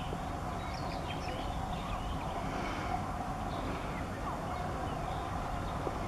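Small birds chirping and twittering in short, scattered notes over a steady low rumble.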